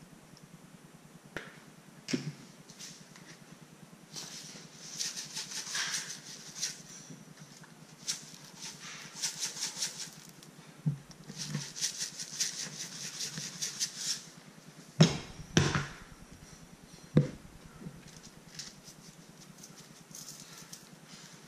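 Handling a raw grouper head over a sheet of aluminium foil: several bursts of light crinkling and rustling, then three dull thumps in close succession about two thirds of the way through.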